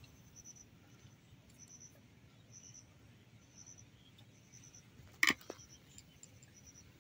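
Faint, high insect chirping, short chirps repeating about once a second. A single sharp click, with a fainter one just after, about five seconds in.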